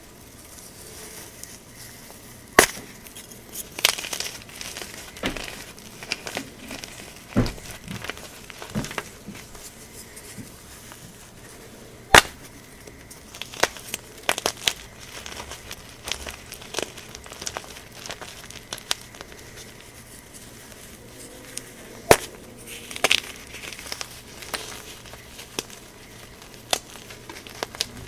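Gym chalk being crushed, crunching and crumbling in a steady run of small crackles, with sharp louder cracks, the loudest three about ten seconds apart.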